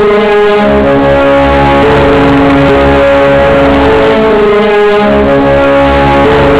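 Music: held brass-like notes over a plucked guitar part and a steady low bass.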